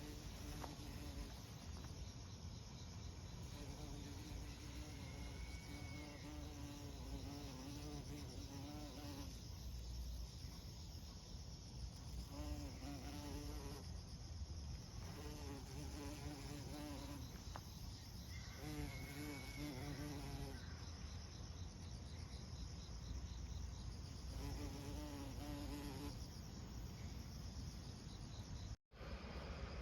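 A flying insect buzzing in repeated bouts of a few seconds, its wavering tone rising and falling, over a steady low background rumble. The sound cuts out briefly near the end.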